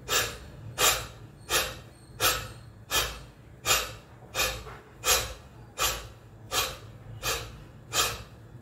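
A man doing bhastrika (bellows breath) pranayama: forceful breaths pushed out through the open mouth, about one every 0.7 seconds in a steady rhythm, around twelve in all.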